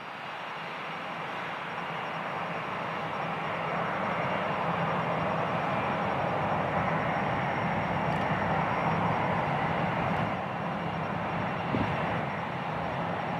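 Boeing 757-200 airliner's jet engines running as the jet turns onto the runway and begins its takeoff roll. The steady roar builds over the first few seconds, then holds level.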